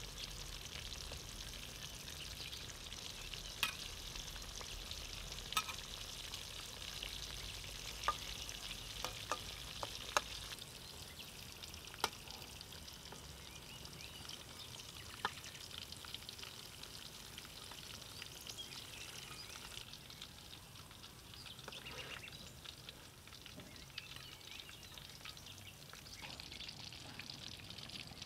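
Breaded pork cutlets deep-frying in hot oil in a metal wok: a steady sizzle. A metal spatula scrapes and knocks against the wok as it turns the cutlets and lifts them out, giving a few sharp clicks, most of them in the first half.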